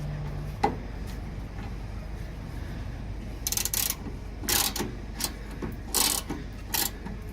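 Hand-cranked metal mechanism being turned with a socket on a bar: a series of short rasping, ratcheting strokes starting about halfway through, repeating roughly every half second to second.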